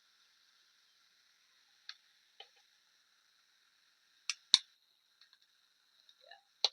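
Scattered sharp clicks and taps of a screwdriver and small metal parts while unscrewing a table fan's housing, the loudest a quick pair of clicks a little past halfway and a few more near the end.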